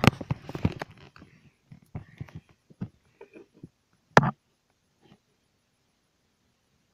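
Handling noise: quick scrapes, taps and rustles of things being moved about, with one louder knock about four seconds in.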